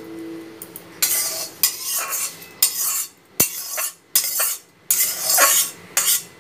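A spoon scraping in repeated short rasping strokes, with one sharp click about halfway, as the prepared tempering of mustard seeds and curry leaves is scraped out onto coconut chutney.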